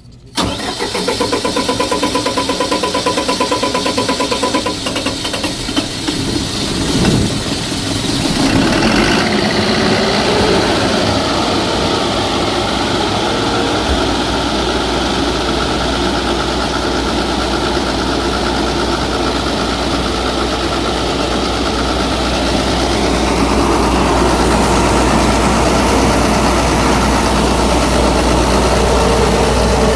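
Keypower generator set's engine starting suddenly about half a second in and then running steadily, its note shifting a few times as it settles.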